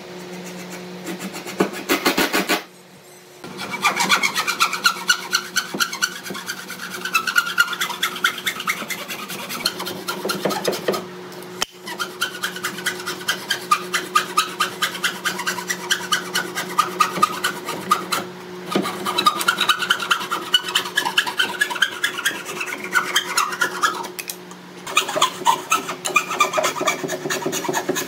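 Hand frame saw cutting through a pine plank: a long run of quick rasping back-and-forth strokes, broken by two short pauses.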